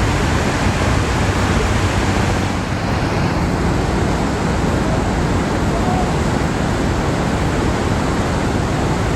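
Iguaçu Falls: the loud, steady rush of a large waterfall, an even wash of noise with no break.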